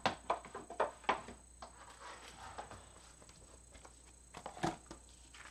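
Hands handling cardstock and a plastic die folder on a desk: a run of light taps and paper rustles, then one sharper click near the end.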